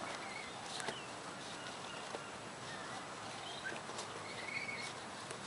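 Faint, steady outdoor background with a few small bird chirps, and occasional soft clicks and scuffs from two Cardigan Welsh Corgi puppies mouthing and chewing a cardboard roll on the grass.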